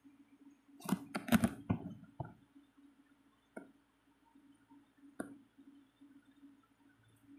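Knocks and clicks from a painted bottle being handled and turned in the hand: a quick run of sharp knocks about a second in, then two single clicks later, over a faint steady low hum.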